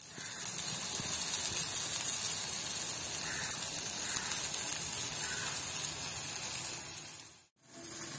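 Athalakkai (Momordica cymbalaria) pieces sizzling as they fry in oil in a pan, a steady hiss. The sound drops out briefly near the end.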